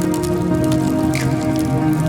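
Background music with sustained tones, over a dense crackle of many small pops.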